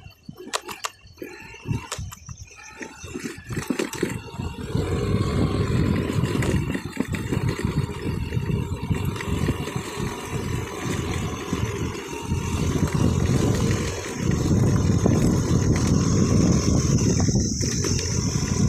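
Motorcycle ridden over a rough, rutted dirt track: engine running under heavy wind buffeting and jolting. Sharp knocks from bumps come in the first few seconds, and the rumble grows louder about four seconds in.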